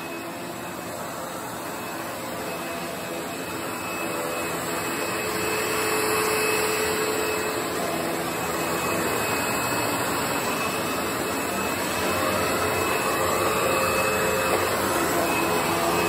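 Panasonic MC-V5005 upright vacuum's 12-amp motor running steadily with a faint high whine as it is pushed over a hard floor. Its wooden brushroll keeps spinning against the hard floor, because the model has no brushroll shut-off.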